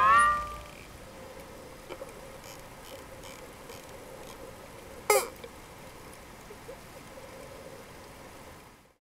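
The last chord of a Hawaiian music track slides upward and stops. It gives way to the faint hiss of an underwater recording with a few scattered clicks and one louder click-and-sweep about five seconds in. The sound cuts off abruptly near the end.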